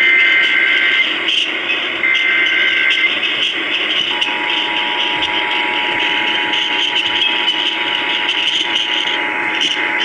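Emergency Alert System tones heard over AM radio static. First come the last two of the three SAME header data bursts, each a warbling digital chirp about a second long, a second apart. About four seconds in, the steady two-tone attention signal begins and holds, heralding a severe thunderstorm warning.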